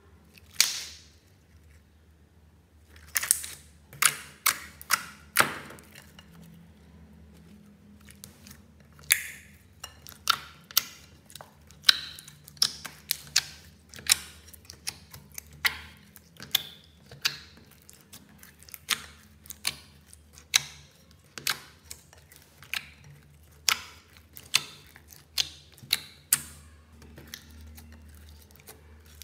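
Fingers poking and pressing clear slime in a glass bowl, making a run of sharp, wet clicks and pops, about one or two a second.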